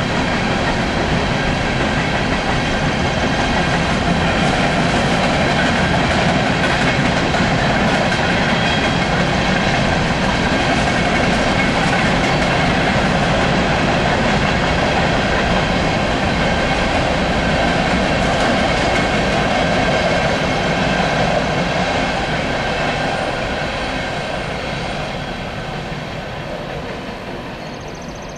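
Empty coal hopper cars of a long freight train rolling past, their wheels clattering steadily over the rails. The sound fades over the last several seconds as the train moves away.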